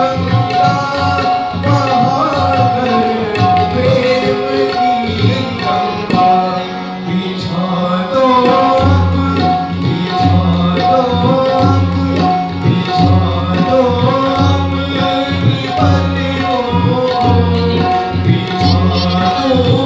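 Bhajan accompaniment of a harmonium playing a melody over a held drone, with tabla keeping a steady rhythm and the bass drum (bayan) giving repeated deep strokes.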